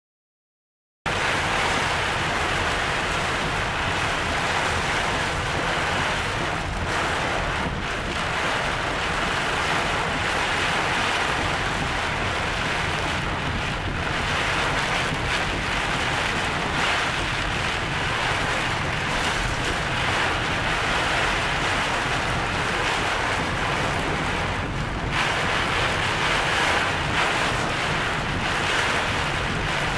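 Heavy wind-driven rain and storm wind pounding a car, heard from inside the cabin: a dense, steady rush that starts about a second in. The driver took these for the winds of a forming tornado.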